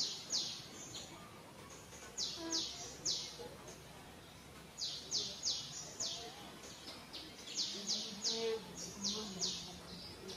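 A bird calling over and over in quick runs of two to four short, high notes that each fall in pitch, a few notes a second with short pauses between the runs.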